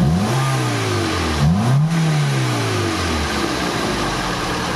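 Toyota 4A-FE four-cylinder engine revved twice by blipping the throttle. Each rev rises quickly and falls back slowly, and the engine settles to a steady idle a little over three seconds in.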